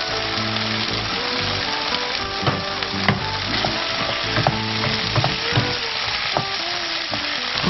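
Food sizzling in hot oil in a non-stick frying pan as it is stirred with a wooden spoon, with a few sharp knocks of the spoon against the pan.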